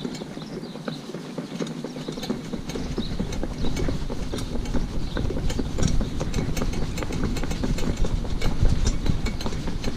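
A pony cart rattling along a tarmac road: a dense run of small clicks and knocks from the cart and harness. A low rumble comes in a couple of seconds in and grows a little louder.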